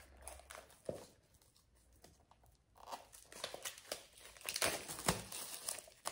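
Wrapping on a book crinkling and tearing as it is peeled off by hand. There is a short tap just under a second in, then bursts of rustling from about three seconds in.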